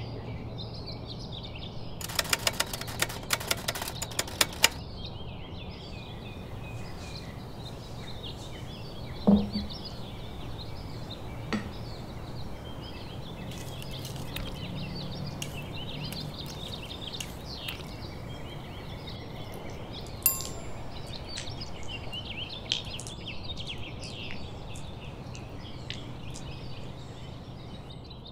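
Birds chirping continuously in the background over a low steady hum. A rapid run of clicks comes a couple of seconds in, then a single thump about nine seconds in, the loudest sound, and a small ringing clink about twenty seconds in.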